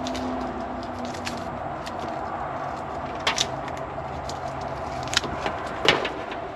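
Handling noise from car-audio wiring work: a few sharp clicks and knocks, the loudest near the end, over a steady background hum.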